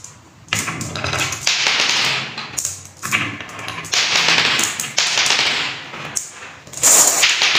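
Green marbles rolling along grooves in a fibreboard board and clicking against one another as they pile up against a wooden block. The rattle comes in waves, swelling about a second and a half in, again about four seconds in, and again near the end.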